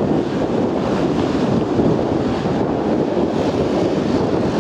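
Wind buffeting the microphone, a steady loud rush, with road traffic faintly beneath it.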